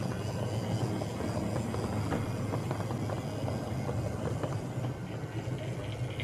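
00 gauge model train rolling along the track: a steady low motor and wheel hum with scattered small clicks of the wheels running over the rail joints.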